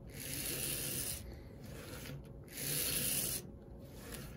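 The motor and tower gears of a Penn Line HO GG1 model locomotive chassis running on a test run after cleaning and re-greasing, making a grinding whir. The whir swells louder twice, at the start and again after about two and a half seconds.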